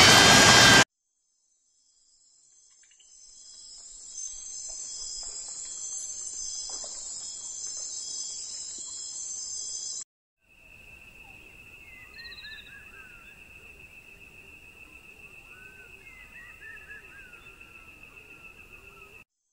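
The end of a loud animal call cuts off just under a second in. A steady high-pitched insect chorus of crickets follows, then a steady single-pitched cricket trill with faint bird chirps around it.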